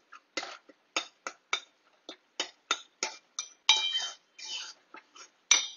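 Metal spoon clinking and scraping against the side of an aluminium pot while stirring a thick curry, a quick run of about three strokes a second with a longer scrape near the middle.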